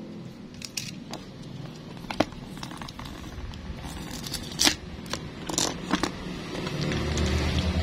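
Clear plastic wrapping crackling and crinkling as fingers peel and handle it, with several sharp crackles. A low rumble builds near the end.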